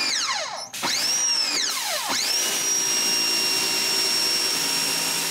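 1600 psi electric pressure washer spraying, its motor switching on and off with the trigger. Its high whine rises as it spins up and falls as it winds down, twice in short squirts. From about two seconds in it holds a steady high whine over the hiss of the spray.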